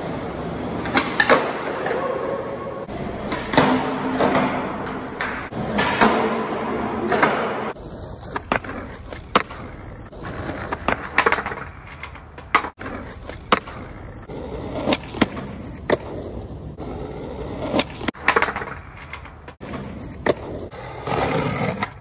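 Skateboard wheels rolling on concrete, with repeated sharp pops and clacks of the board as tricks are popped and landed.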